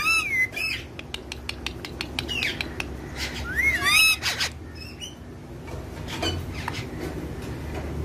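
Rose-ringed parakeets calling: a squeaky, whistled call that swoops up and down at the start, and another longer one from about two and a half to four seconds in, with a quick run of sharp clicks between them.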